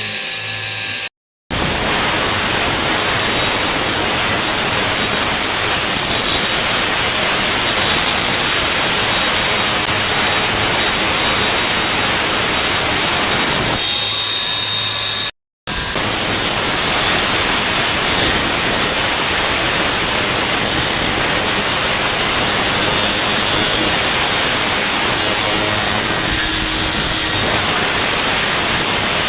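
A woodworking power tool running steadily with a high whine, with two brief dead silences where the sound cuts out.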